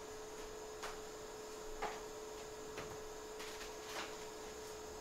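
A steady faint electrical hum with four light clicks about a second apart, the second one loudest.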